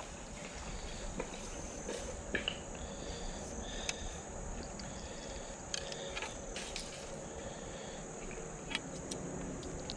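Steady, high-pitched insect chorus, with a few scattered small clicks and taps from a tiny fish being unhooked by hand.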